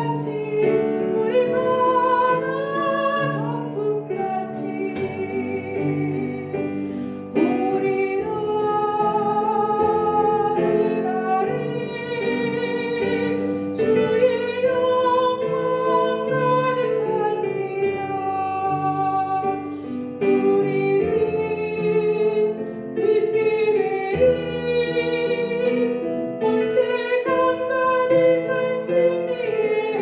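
A classically trained soprano singing a hymn in long held notes over an instrumental accompaniment.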